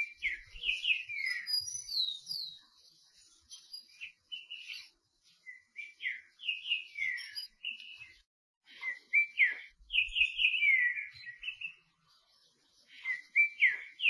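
Green-winged saltator (trinca-ferro) singing: several short phrases of clear whistled notes, many sliding downward, with short pauses between phrases.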